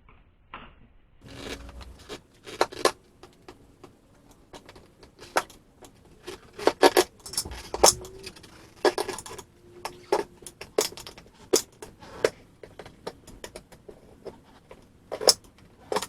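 Metal tire spoons clinking and scraping against the wheel rim as a tractor tire's bead is levered up and over it: irregular sharp metallic clicks and clinks with scraping in between.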